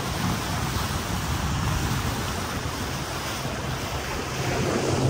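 Iron 827 boat running fast over open water: rushing water and wind buffeting the microphone, with a low engine drone underneath.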